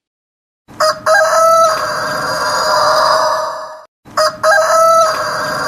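Rooster crowing twice: each crow opens with a few short notes and then stretches into one long held call. The first begins just under a second in, and the second starts about four seconds in.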